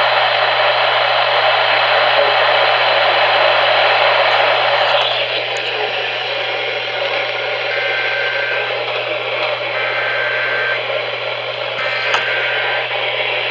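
Weather radio receiver hissing with loud static where the broadcast voice has dropped out. About five seconds in the hiss thins and changes, and from then on a faint beep comes and goes, roughly one second on and one second off.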